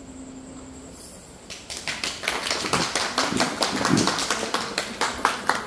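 Hands clapping: the clapping starts about a second and a half in, swells into a dense, uneven patter, and near the end settles into an even beat of about three claps a second.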